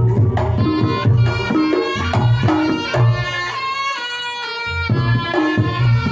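Reog Ponorogo gamelan music: a slompret (Javanese shawm) plays a reedy, bending melody over kendang drums and low gong strokes that repeat about once a second. The low strokes drop out briefly around the middle and come back.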